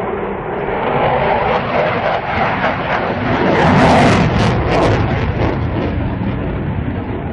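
Jet noise of a Eurofighter Typhoon's two Eurojet EJ200 turbofans as the fighter flies its display. A loud, continuous rush swells to its loudest about four seconds in, with a hissing edge at the peak, then eases off.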